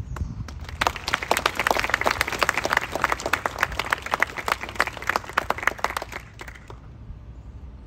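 Outdoor audience applauding. The clapping starts just under a second in and dies away after about six seconds.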